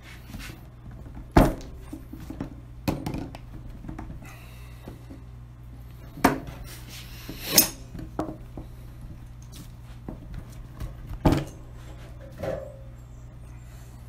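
Barbed fittings being shoved by hand into rubber fuel hose on a plywood workbench: a handful of scattered knocks and clatters as the hose, fitting and hands bump the bench, the loudest about a second and a half in, over a steady low hum.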